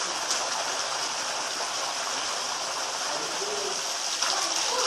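Steady rushing, splashing water noise, like a stream or flowing water, with no clear strokes or rhythm.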